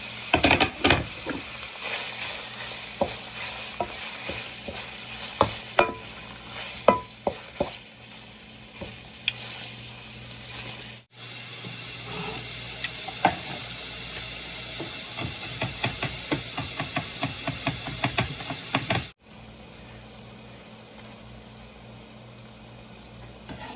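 Diced bacon, beef and chicken sizzling in a frying pan, with scattered knocks of a spatula stirring. In the second part, a knife chops garlic on a wooden cutting board in a quick even rhythm, about four chops a second, over the sizzle.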